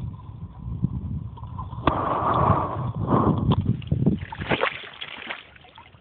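Pond water splashing and sloshing around a largemouth bass at the surface, with a run of splashes from about two seconds in that dies away near the end.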